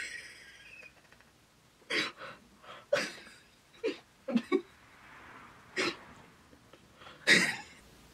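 A woman's short non-speech vocal sounds, breathy grunts and sharp exhalations, in about nine brief bursts from about two seconds in, the loudest near the end.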